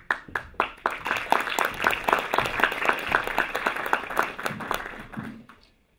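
Audience applauding: a few separate claps at first, filling into steady clapping, then dying away near the end.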